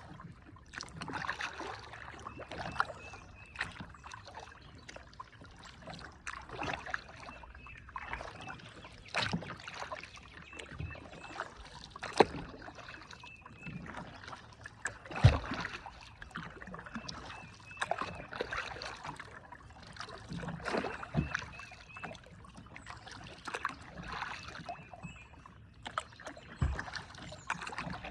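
Kayak paddling: a paddle stroking the water every few seconds, with splashing and water dripping and trickling off the blades. A sharp knock comes twice, about halfway through.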